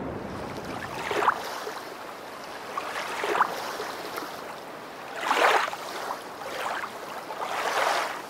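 Waves washing in, four swelling surges of water about two seconds apart.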